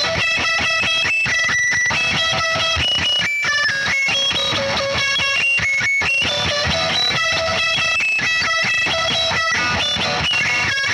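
Loud, dense art-noise-metal with two distorted twelve-string electric guitars strummed and picked, fast-changing high ringing notes layered over a steady wall of sound.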